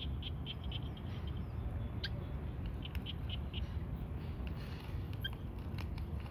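Cats chewing dry kibble: a run of small, quick crunching clicks, several a second at first and then scattered, over a steady low rumble.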